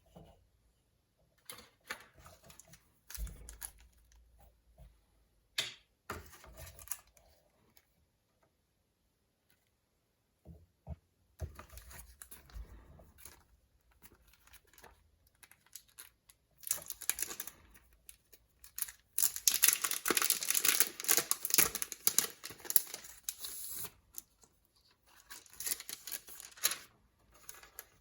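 Packaging of a plastic model kit being handled: scattered clicks and short rustles, then a long stretch of crinkling and tearing, plastic bags and wrapping being opened, loudest past the middle, with a shorter burst near the end.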